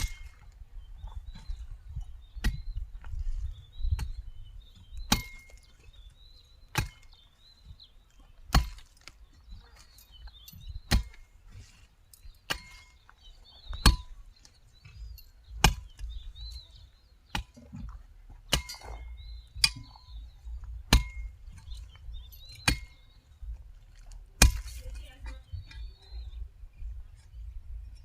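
Hand hoe chopping into the soil while weeding, a sharp strike about every one and a half to two seconds. Birds chirp faintly between the strikes.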